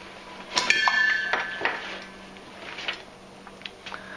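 Stainless steel camp mug and nested cups knocking together: a sharp metallic clink about half a second in that rings on for about a second, then a few lighter clinks and scrapes.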